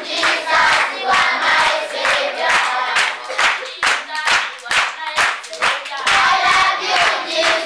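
A large group of schoolchildren singing together and clapping their hands in a steady rhythm, about two claps a second.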